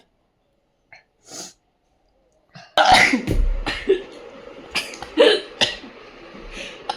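Sneezing brought on by snuff: after a near-silent stretch, a string of sudden, loud sneezes starts about three seconds in, the first the loudest, followed by several more in a row.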